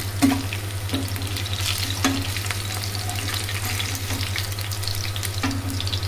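Fish pieces shallow-frying in hot oil in a frying pan, a steady crackling sizzle. A few clicks of a metal spatula against the pan come through as pieces are lifted out, over a steady low hum.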